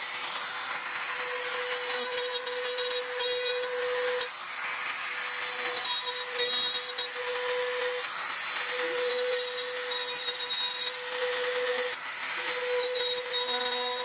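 Compact trim router running at speed with a steady high whine, its bit cutting a shallow mortise in sycamore for bed-rail hardware. The whine breaks off briefly a few times.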